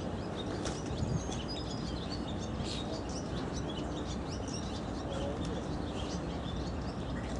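Small birds chirping, many short high chirps overlapping throughout, over a steady low background noise.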